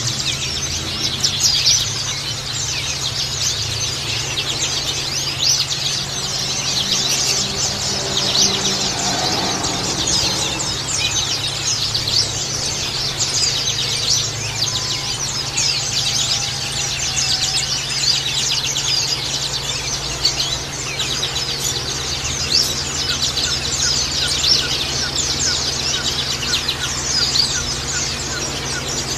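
Pleci (white-eye) chirping and twittering without pause, a dense stream of quick high calls overlapping one another. This is the kind of lure song played to prompt a kept white-eye to sing.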